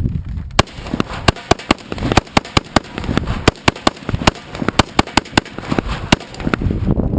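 AK-47 rifle firing a long string of rapid shots, about three to four a second at an uneven pace, with fainter shots mixed in among the loud ones.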